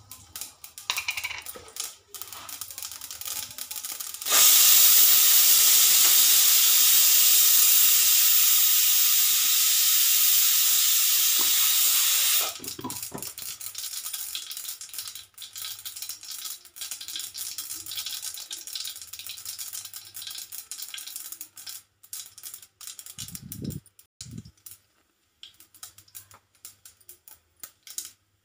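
Cumin seeds and spices frying in hot oil in a non-stick kadhai, with scattered small pops and crackles. From about four seconds in to about twelve, a loud, even hiss drowns them out, starting and stopping abruptly. A couple of low thuds come near the end.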